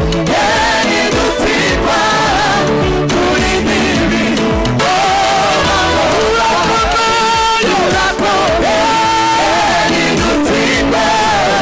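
Loud live gospel worship music: a male lead singer and a praise team of singers over band accompaniment with a steady beat.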